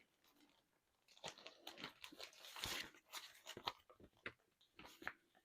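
Faint, irregular crinkling and clicking of small packaging being handled and opened, starting about a second in.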